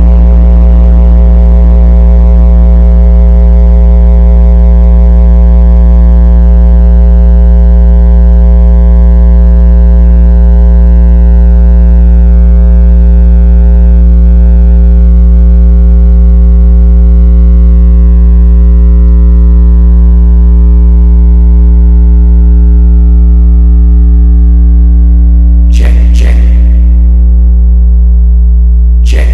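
A single deep electronic bass tone held steady and very loud, with a row of overtones above it, from a DJ bass sound-check track. Two short sharp hits sound near the end.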